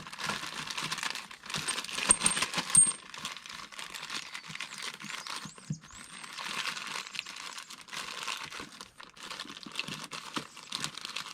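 Plastic packaging of a shock hardware kit being opened and crinkled, with a few sharp clicks of small parts being handled, strongest about two to three seconds in.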